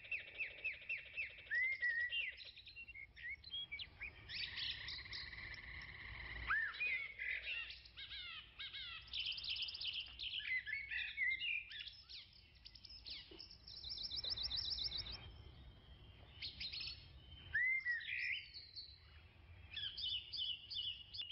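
Several birds singing and calling at once: quick chirps, rapid trills and short curving whistles overlapping one another.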